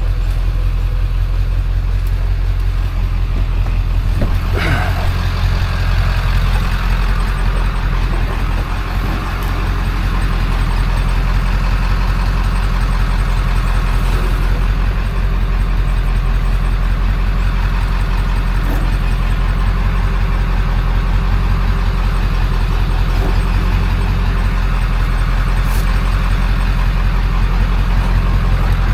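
A vehicle's engine and road noise drone steadily, as heard while driving, with a brief falling squeal about four and a half seconds in.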